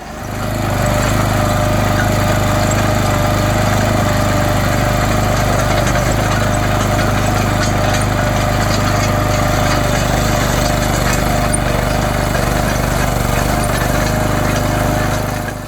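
Small engine of a walk-behind chain trencher running steadily under load. It is a loud, even drone with a steady hum that swells up over the first second and cuts off abruptly at the end.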